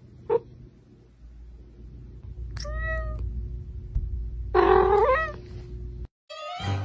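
Cat meowing three times: a short mew at the start, another about two and a half seconds in, and a louder, longer meow with a wavering pitch about four and a half seconds in.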